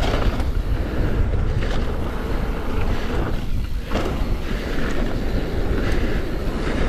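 Mountain bike riding down a dirt trail: steady wind rush over the microphone and tyre rumble, broken by irregular rattles and clatter from the bike over rough ground.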